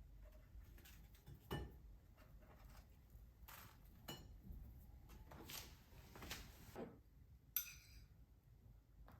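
Faint, scattered clinks and light knocks of dishes and cutlery being handled, one every second or so, one with a short ring about three quarters of the way in.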